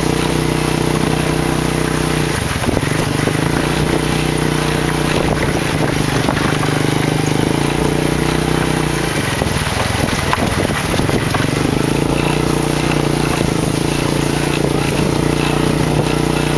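Motorcycle engine of a remork-moto (motorcycle-drawn passenger carriage) running steadily while riding, with wind and road noise. The engine note fades briefly about two seconds in and again for a couple of seconds around the middle, then steadies.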